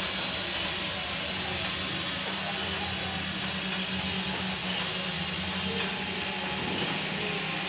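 Quadcopter's motors and propellers running steadily in flight, a high thin whine over a lower hum.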